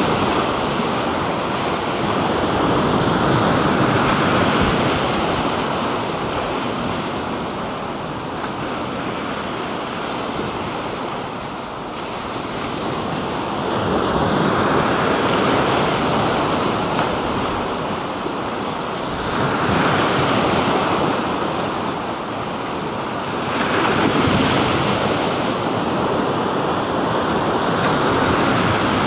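Black Sea surf: waves breaking and washing ashore in a steady rush that swells with each wave every few seconds, with some wind on the microphone.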